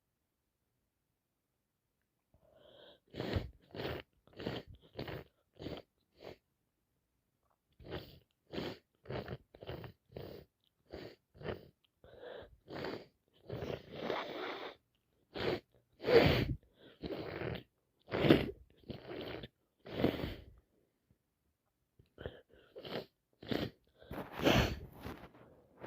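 A woman sneezing over and over in quick runs of short sneezes, about two a second, with two brief pauses between the runs; she puts the fit down to allergies on top of a cold.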